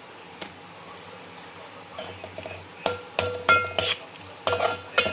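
Metal spoon stirring the salt into an onion-tomato masala in a metal pot, over a faint steady sizzle; from about three seconds in the spoon scrapes and knocks against the pot in a string of ringing clinks.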